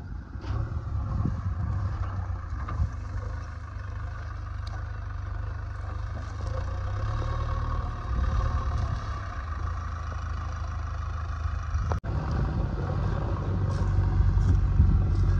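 JCB 3DX backhoe loader's diesel engine running steadily as the machine works, with a brief dropout about twelve seconds in. The engine grows louder over the last few seconds as the machine drives through the brush piles.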